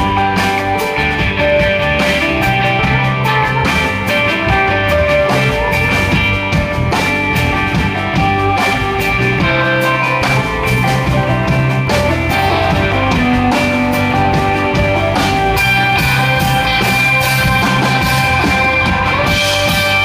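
Live rock band playing loudly: two electric guitars, electric bass and a drum kit.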